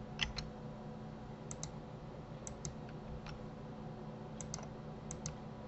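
Computer keyboard clicking: about six quick pairs of key clicks spread across the few seconds, over a faint steady electrical hum.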